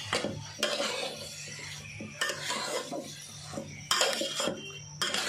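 Steel spoon stirring and scraping a thick mix of marinated soya chunks and vegetables around a metal cooking pot as it sautés, with a few sharp knocks of the spoon against the pot.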